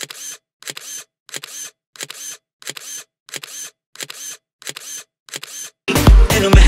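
Camera shutter clicks, the same click repeated about every two-thirds of a second, about ten times. About six seconds in, dance music with a heavy bass beat cuts in.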